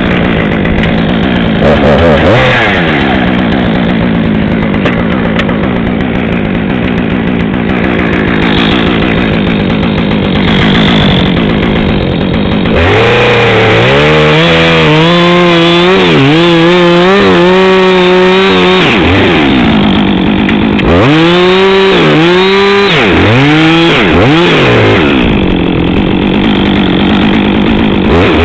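Two-stroke chainsaw running at high revs, cutting steadily into maple wood for about the first half. In the second half its pitch repeatedly drops and climbs back as the chain bogs into the cut and frees up.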